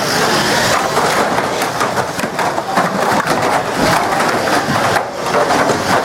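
Banger racing cars running on the track, a loud continuous din of engines and tyres broken by many short knocks and crunches from cars hitting one another.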